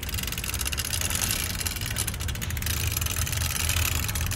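Recorded bike sound effect playing back: a steady low hum under fast, even ticking.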